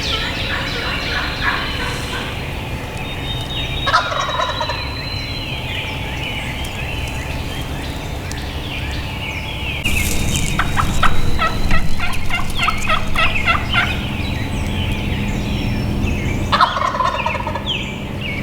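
Wild turkey gobblers gobbling several times, the longest and loudest run about two-thirds of the way through, with small birds chirping and singing in the background.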